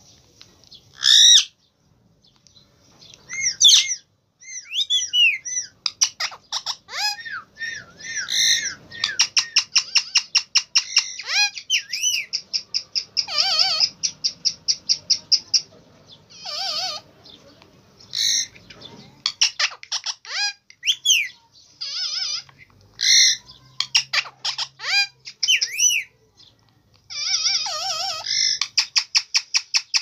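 Indian ringneck parakeet chattering: curved, whistled chirps mixed with fast runs of repeated high notes, about six a second.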